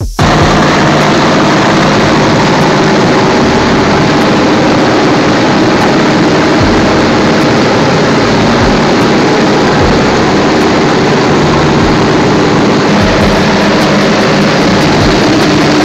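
B-24 Liberator's four Pratt & Whitney R-1830 Twin Wasp radial engines and propellers running steadily in cruise flight, heard from inside the fuselage as a loud, even hum under a rush of air.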